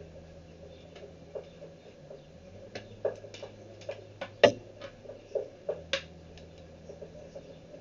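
Irregular small clicks and taps of hands working nylon fishing line and a lure close to the microphone, the loudest about four and a half seconds in, over a faint low steady hum.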